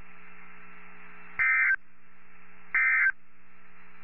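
Emergency Alert System end-of-message data bursts on NOAA Weather Radio: two short, harsh digital warbles about 1.3 s apart, the SAME signalling that marks the close of the alert. A steady radio hiss and hum runs under them.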